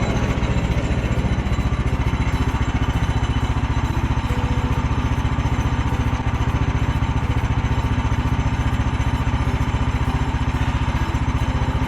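Woodland Mills HM130 portable band sawmill's small gasoline engine running steadily, with a fast even firing pulse and no change in speed, while it cuts frozen logs with the blade running unlubricated.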